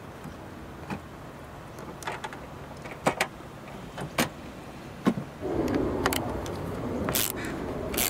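Scattered sharp clicks and knocks of the plastic tailgate handle panel being handled and seated on the Volvo XC40's tailgate. About five seconds in, a steadier mechanical noise starts as a screw is turned in by a ratcheting screwdriver.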